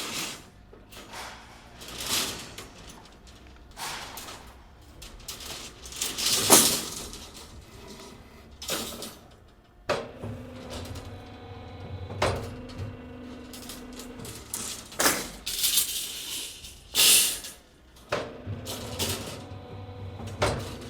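Construction site noise: irregular knocks, bangs and scrapes of materials being worked, with a steady machine hum from about ten seconds in to nearly the end.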